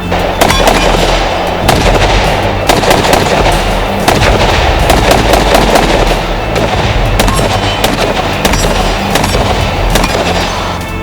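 Rapid gunfire, many shots in quick, irregular succession, over background music with a steady bass line.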